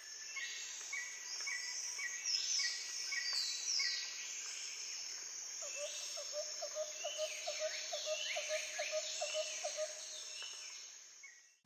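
Several birds calling together: many short whistled and down-slurred notes, joined about halfway through by a lower rapid trill of about four notes a second.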